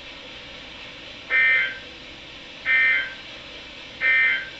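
NOAA Weather Radio SAME end-of-message data tones: three short digital bursts about 1.4 s apart over faint radio hiss, marking the end of a severe thunderstorm warning broadcast.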